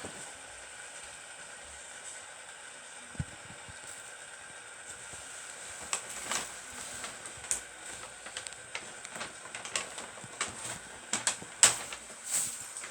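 Two metal fidget spinners spinning steadily with a faint, even whir, still going strong long after being set off. Scattered small clicks and knocks come in over it, more often in the second half, the loudest a little before the end.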